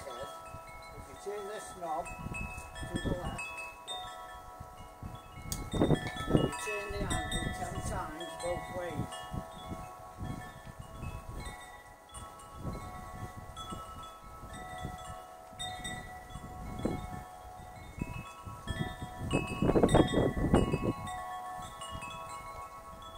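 Wind chimes ringing, many overlapping bell-like tones sounding and dying away. Low rumbling gusts come and go underneath, loudest about six seconds in and again near the end.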